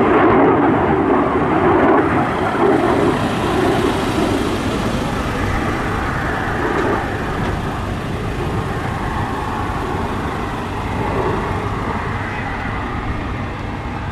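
Jet roar from the twin turbofan engines of a Boeing F/A-18 Super Hornet in a flying display: a steady rushing roar that slowly fades as the jet moves away.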